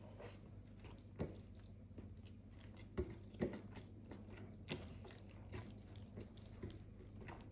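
Close-up eating sounds of a meal of chicken curry and rice: chewing and wet mouth smacks, with a few sharper clicks about 1, 3, 3.5 and 4.5 seconds in, over a low steady hum.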